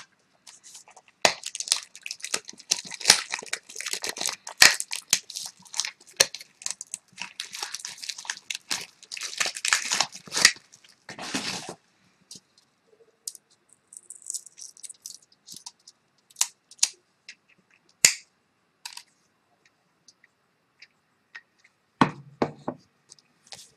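Packaging being opened by hand: a dense run of crackling and tearing for about ten seconds, then scattered clicks and short rustles.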